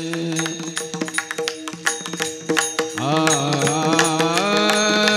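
Devotional kirtan music: steady held melodic notes over rapid, dense percussion strikes, with a sung line sliding in about three seconds in.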